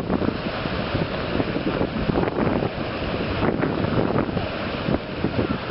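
Wind buffeting the microphone outdoors, an uneven rushing noise with irregular gusts.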